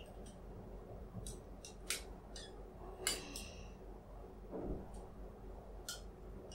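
Metal spoon clinking against drinking glasses of water: a string of light, sharp clinks, one about three seconds in ringing briefly like glass. A duller soft knock follows about four and a half seconds in.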